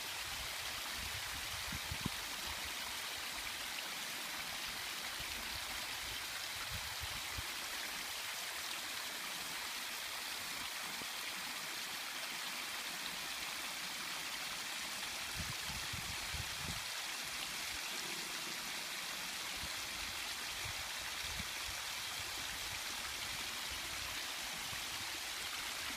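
Steady rush of water falling and splashing, an even hiss with no let-up, with a few brief low thumps now and then.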